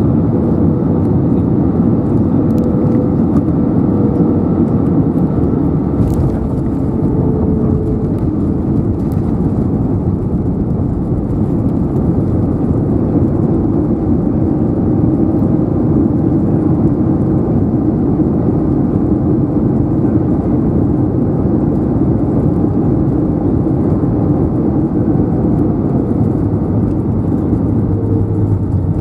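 Steady cabin roar of an Airbus A320neo with Pratt & Whitney PW1100G geared turbofans, touching down and rolling out on the runway with its spoilers raised, heard from a window seat over the wing. A few light clicks come about six seconds in.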